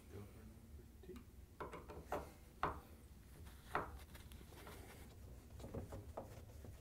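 Phillips screwdriver backing screws out of a dishwasher's top mounting bracket: faint, uneven scraping of the tip in the screw heads, with a few sharper metal clicks.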